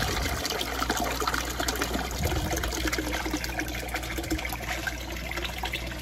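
Water pouring in a steady stream from a pipe into a glass aquarium tank, splashing and churning the surface as the tank fills. A low steady hum runs underneath.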